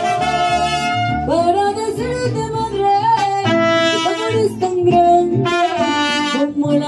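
Mariachi band playing an instrumental passage, trumpets carrying the melody over a stepping bass line.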